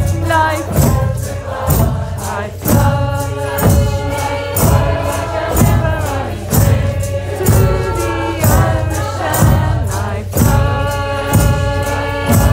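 Several voices singing and chanting together over a steady beat of hand drums with jingling percussion.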